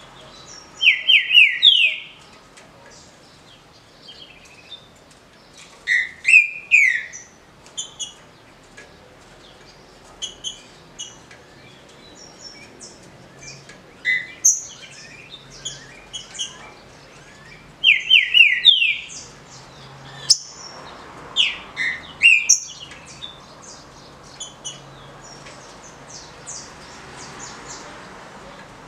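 Green-winged saltator (trinca-ferro) singing its short 'roda'-style song: a loud phrase of three or four quick whistled notes, repeated several times with pauses between. Fainter high chirps run between the phrases.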